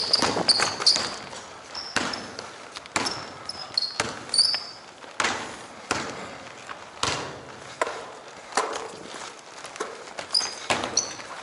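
A basketball being dribbled on a hardwood gym floor, about one bounce a second, with short sneaker squeaks on the floor near the start, in the middle and near the end.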